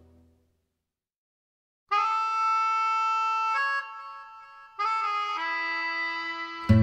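Background music: one song fades out, and after a short silence a new song begins with long held melody notes on a reed instrument. Fuller accompaniment comes in at the very end.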